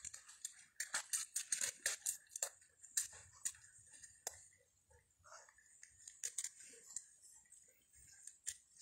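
Footsteps crunching and crackling through dry leaves, twigs and brush, thick for the first few seconds and then sparser.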